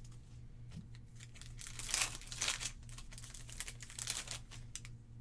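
Foil Pokémon booster pack wrapper crinkling as it is torn open and the cards are pulled out. It comes in two rustling bursts, about two seconds in and again near four seconds.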